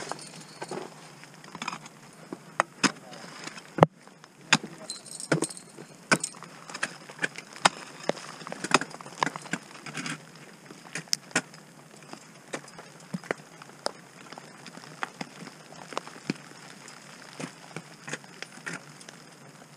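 Ice axes and crampons striking snow and ice in irregular sharp hits, about one or two a second, with climbing gear clinking.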